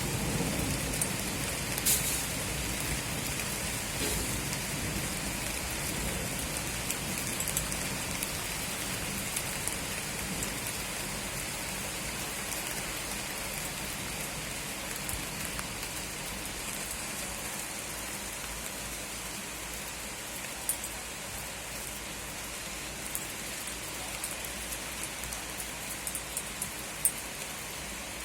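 Steady rain falling, an even hiss, with a few sharp ticks scattered through it.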